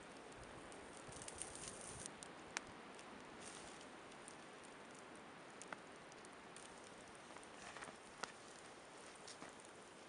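Quiet campfire of burning logs giving a few sharp pops over a faint steady hiss, with some rustling as a person moves about on snow-covered leaves.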